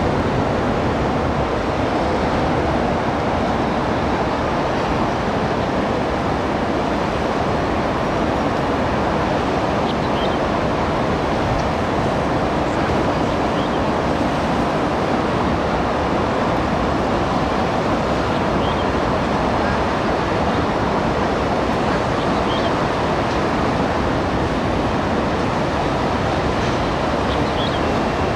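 Steady, even roar of road traffic from the surrounding elevated expressways, without any rise or fall.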